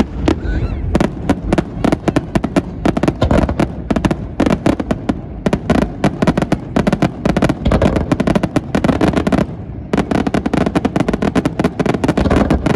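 Fireworks display: a dense, rapid barrage of bangs and crackles from aerial shells, with a short lull about ten seconds in.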